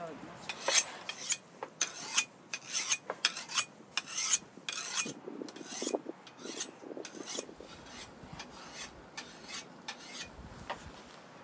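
A kitchen knife being sharpened on a hand-held sharpener, the blade drawn across it in quick rasping strokes about two a second, trailing off after about seven seconds.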